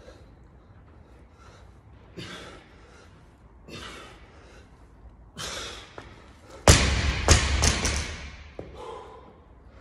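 Loaded barbell with black bumper plates dropped onto the rubber gym floor: a heavy thud followed by a few bounces. Before it come three hard, sharp exhales from the lifter.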